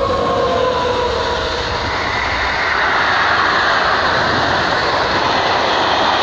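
SNCF BB 26000-class electric locomotive (BB 26232) passing close by, the whine of its motors dropping in pitch as it goes past in the first second. Then the loud, steady rolling noise of its intermodal train of container and tank-container wagons running by on the rails.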